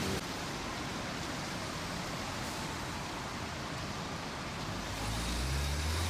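Street ambience: a steady wash of traffic noise, with a low vehicle rumble building from about five seconds in as a tram approaches along the track.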